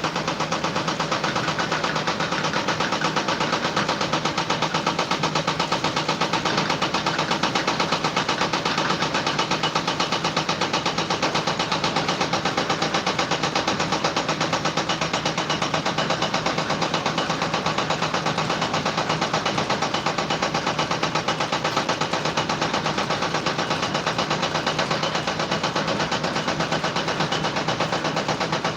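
A steady mechanical running sound with a rapid, even pulse that goes on without a break.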